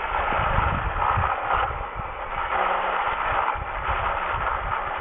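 1960s Texas Nail lawn edger's motor running as its blade cuts a trench through the grass and soil at the sidewalk edge, a rough rasping hiss over a faint steady hum that swells and eases as it is pushed along.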